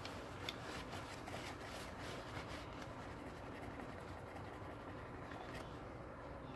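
Faint rustling and rubbing of a paper towel wiping water off an EKWB Supremacy Evo CPU water block, with a few small clicks of handling near the start.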